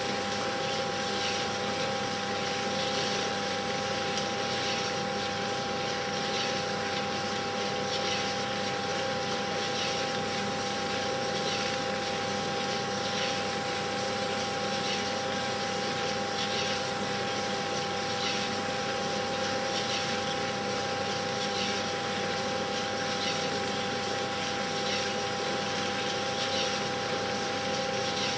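A steady mechanical drone with two constant humming tones, overlaid by faint soft ticks every second or so.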